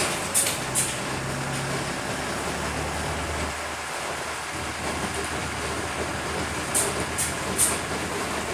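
Bus driving, heard from inside the driver's cab: a steady engine and road noise, with a low engine hum that drops away about three and a half seconds in. A few short, sharp clicks come near the start and again about seven seconds in.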